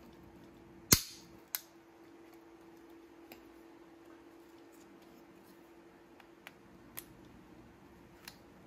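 Plastic of a PC case's front I/O plate snapping under side cutters as it is cut away to free the power button: one sharp, loud snap about a second in and a smaller one just after, then a few light clicks as the plate is handled. A faint steady hum sits underneath.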